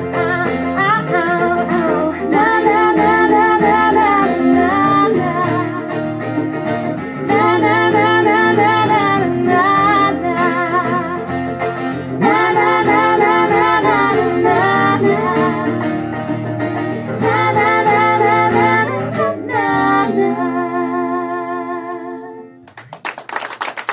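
Live acoustic country band playing the closing bars of a song, with voices and plucked guitars, ending on a held chord that fades out about 22 seconds in. Clapping starts just before the end.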